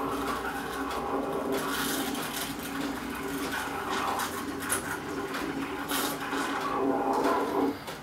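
Steam wand of an Ascaso Dream Up V2 thermoblock espresso machine hissing as it froths milk in a stainless pitcher, over a steady hum from the machine's pump. The sound cuts off just before the end as the steam switch is turned off.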